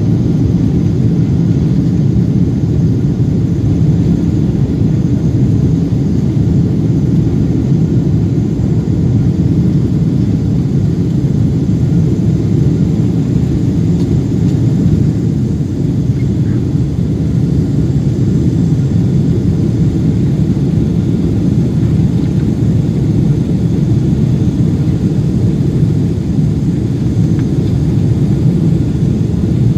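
Steady low rumble of a Boeing 777-200's engines and airflow as heard inside the passenger cabin, even and unbroken throughout.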